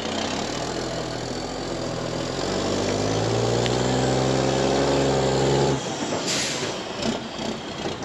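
Concrete mixer truck's diesel engine running and rising in pitch as the truck is driven a short way, then cutting off suddenly about six seconds in, followed by a short hiss of air from the brakes.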